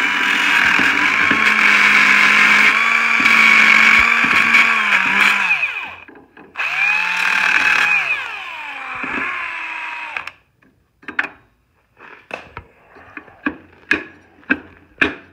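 Small right-angle sanding tool running, sanding rust buildup off a furnace blower motor shaft; it is switched off about five seconds in and winds down with falling pitch, is run again briefly, and winds down once more. After that, a series of sharp clicks and taps.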